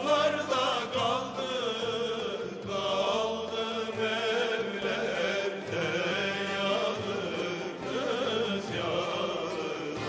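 Background music: a chanted vocal line with a wavering, ornamented melody over a steady held drone.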